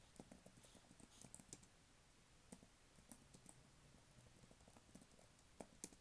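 Typing on a computer keyboard: soft, irregular key clicks, in a quick run at the start and again near the end, sparser in between.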